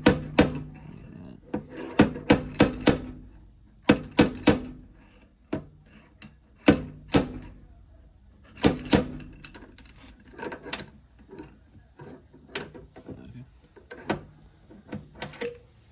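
Hammer knocks in irregular runs of two to five quick blows, each with a short ring, getting lighter near the end.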